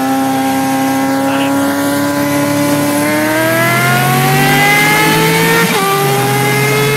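Sport motorcycle engine running hard at high revs, its pitch climbing slowly and then faster from about halfway through, with a brief dip in pitch near the end.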